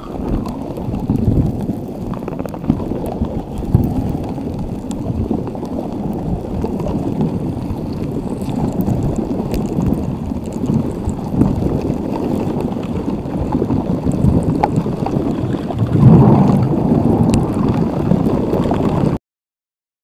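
Ocean waves: a low, steady rushing wash of surf that swells louder about sixteen seconds in, then cuts off abruptly near the end.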